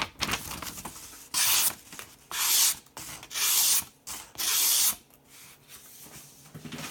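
Large blade of a Victorinox Swiss Army knife slicing through material in a sharpness test: four separate strokes, each about half a second of rasping hiss, with small handling clicks between them.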